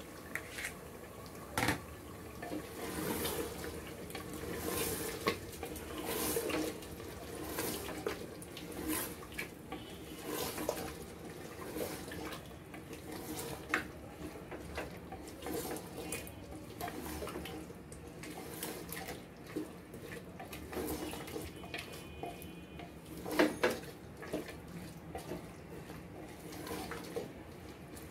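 A wooden spoon stirring and scraping beef liver and potato pieces in an aluminium pressure cooker, with many short scrapes and knocks against the pot over a steady frying hiss. There is one louder knock a few seconds before the end.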